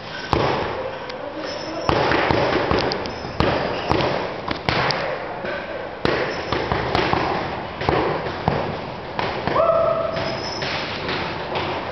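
Punches landing on boxing focus mitts: a run of sharp slaps and thuds at an irregular pace, with voices in the background. A short steady tone sounds about ten seconds in.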